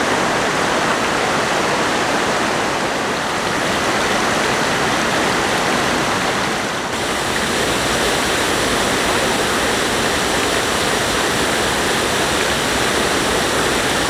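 Loud, steady rush of a fast stream, swollen by a week of heavy rain, pouring over rocks and a small waterfall. There is a brief dip about seven seconds in, after which the rush is brighter and hissier.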